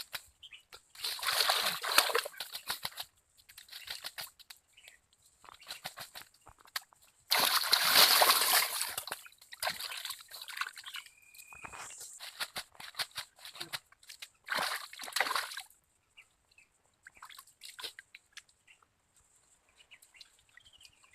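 Water splashing and sloshing as fish are being caught, in three loud bursts with trickling and small splashes between.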